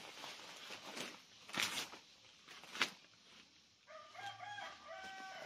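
Dry leaves and twigs crunching and snapping as brush is pulled away by hand, with two sharp snaps standing out. About four seconds in, a rooster crows: several short pitched syllables ending in a falling note.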